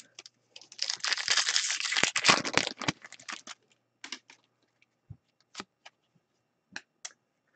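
A hockey card pack's wrapper being torn open and crinkled for about three seconds, followed by a few scattered soft clicks and snaps as the cards are handled.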